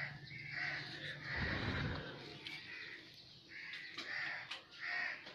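Crows cawing, several short harsh calls at irregular spacing, with a brief low rumble about a second and a half in.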